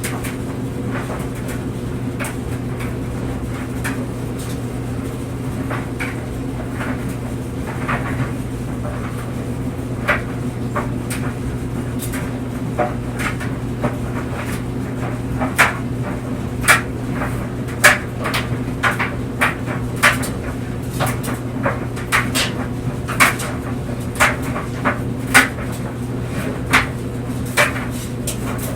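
Clothes dryer running: a steady motor and drum hum with irregular knocks and clicks from the load tumbling against the drum. The knocks come louder and more often, about one or two a second, in the second half.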